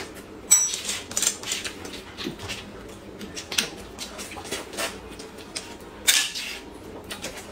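Two people eating steamed buns: chewing and lip-smacking with many short, sharp mouth clicks, and louder smacks about half a second in and again about six seconds in.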